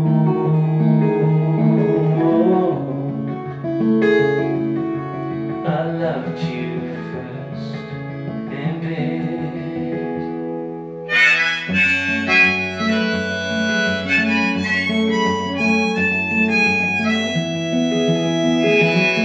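Instrumental break in a live solo acoustic song: acoustic guitar accompaniment with a harmonica carrying held melody notes. About two-thirds of the way through the playing gets louder and brighter.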